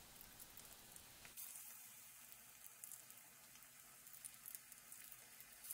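Ragi-battered potato bondas deep-frying in hot oil: a faint sizzle with small scattered crackles.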